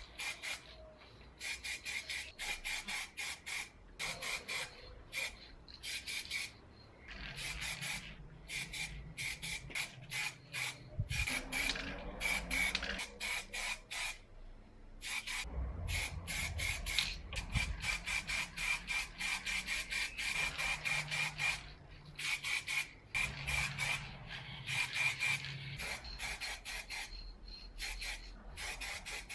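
Aerosol spray-paint can hissing in many short bursts, each squirt starting and stopping sharply with brief pauses between, as base-coat primer goes onto metal parts.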